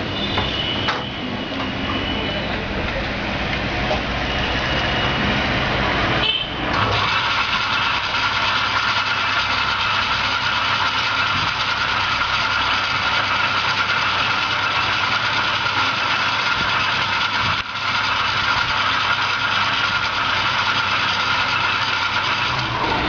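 Steady, loud machine-like running noise with a constant hum. It breaks off briefly about six and a half seconds in and again near seventeen and a half seconds.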